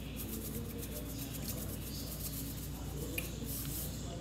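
Salt shaken from a shaker onto potato salad: a fine, rapid patter of grains rattling out for the first two and a half seconds, then a faint click or two.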